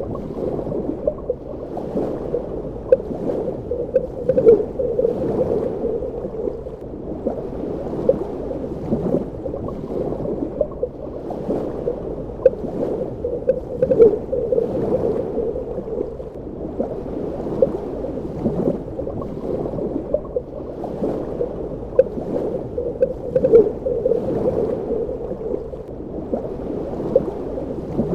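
Underwater ambience: a muffled, low rush of water with many small pops and bubbling clicks. It swells about every nine to ten seconds.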